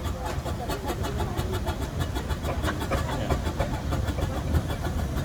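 Steam traction engines on parade running past: a steady low rumble with a rapid, even mechanical clatter.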